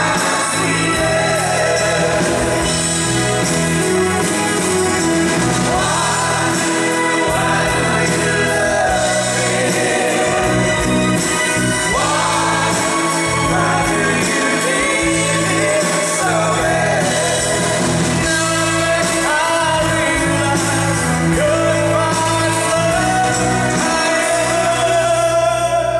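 Live band playing a song: men singing lead and harmony vocals over strummed acoustic guitars, bass guitar and drums, amplified through a PA in a large hall.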